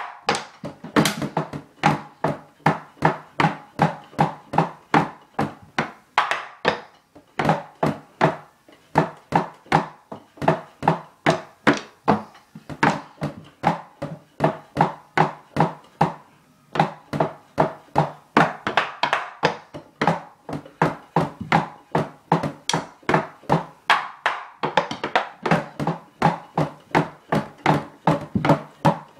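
Wooden drumsticks striking the rubber pads and cymbal pads of an electronic drum kit, heard only acoustically, as the kit's own sounds go to headphones: a fast, rhythmic run of dull taps and thunks, about four a second, broken by a few brief pauses.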